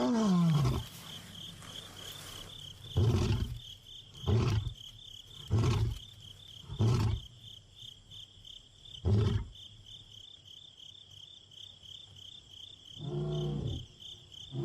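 Male African lion's roaring bout: a long moaning roar falling in pitch ends about a second in, followed by five short grunts spaced a second or more apart and slowing, then another call near the end. It is a contact roar, calling for a separated companion. A steady high insect trill runs underneath.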